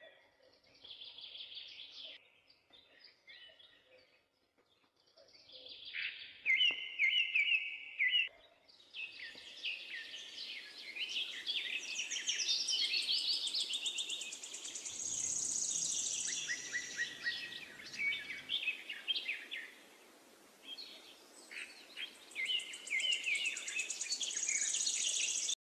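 Birds chirping and singing, with repeated short phrases and fast high trills. About a third of the way in, a steady hiss starts up underneath them.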